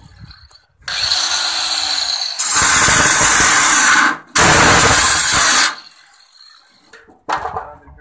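Handheld electric angle grinder spinning up, then cutting through the thin sheet metal of a tin oil can in two very loud passes with a brief break between them, before stopping. A short clank follows near the end.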